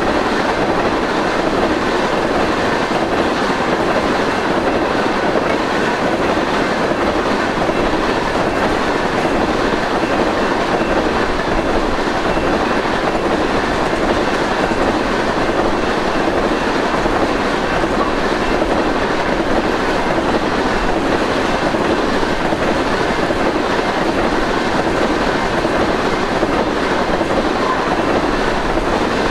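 Fast empty crude oil train rolling past, its tank cars making a loud, steady rush of wheels on rail.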